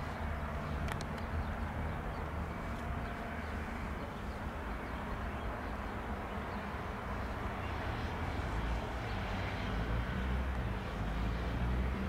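Distant Boeing 737-800 on approach to land: a low, steady rumble from its CFM56-7B turbofan engines, growing slightly louder toward the end.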